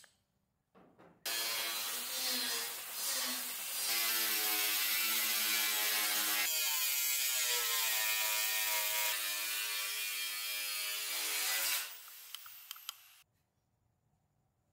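A rapid mechanical rattle from a tool mechanism, starting abruptly about a second in and running for about eleven seconds. Its pitch bends and shifts partway through, then it stops.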